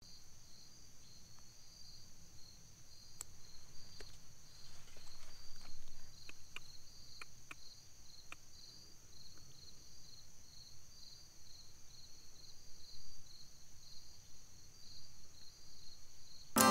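Crickets and other insects calling: a steady high buzz with a rhythmic pulsing chirp beneath it, and a few faint clicks between about three and eight seconds in.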